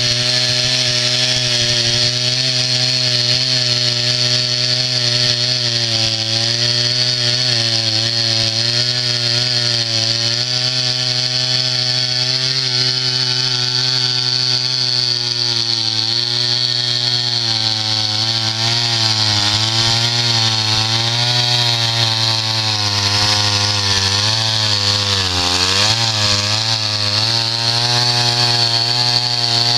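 Norwood portable band sawmill running, its gas engine driving the blade with a steady engine note under a loud high blade hiss. The engine pitch wavers and dips in the second half, deepest near the end, as it takes load.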